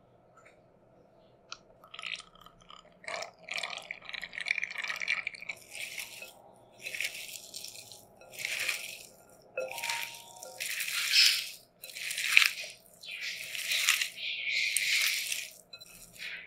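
Food being prepared in a kitchen: after about two seconds of near quiet, a run of short, crisp, scratchy strokes, each under a second long, repeats about once a second.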